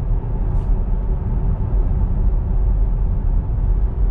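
Road and tyre noise inside a Tesla Model 3's cabin at about 35 mph: a steady low rumble with no engine note, and one brief faint tick about half a second in.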